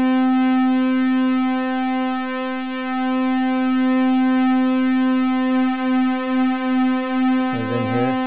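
Modular analog synthesizer oscillator holding a steady mid-range pulse-wave tone with many overtones while its pulse width is modulated. In the second half the level wobbles about three times a second.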